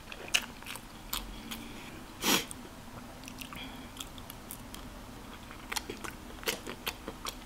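A person chewing food with the mouth close to the microphone: wet smacking and biting sounds with many small scattered clicks, and one louder short noise about two seconds in.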